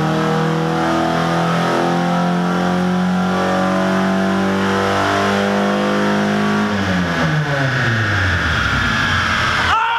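Nissan 240SX's rebuilt KA24DE 2.4-litre inline-four under full throttle on a chassis dyno. Its revs climb steadily for about seven seconds, then the throttle closes and the revs wind down.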